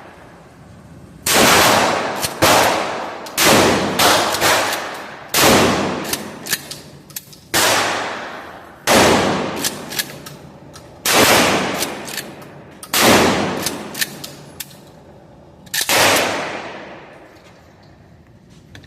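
A G Force GF2P pump-action 12-gauge shotgun firing a string of about ten loud shots, one every one to two seconds. Each blast trails off in a long echo.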